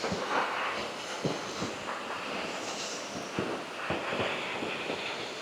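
Footsteps walking along a path, a few irregular soft thuds, over the steady rush of the Hardraw Force waterfall, which is running low after dry weather.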